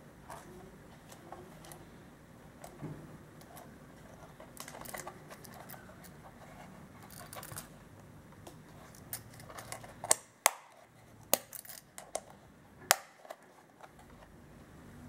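Handling of a leather magazine pouch: faint rubbing and small creaks of stiff leather, then about two-thirds of the way in a handful of sharp clicks as the flap's metal snap fastener is worked.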